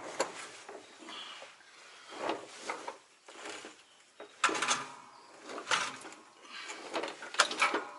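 Irregular metal knocks, clunks and short scrapes as a heavy-truck transmission is worked into line with the clutch, its throwout bearing being brought onto the clutch fork. The loudest knocks come in the second half.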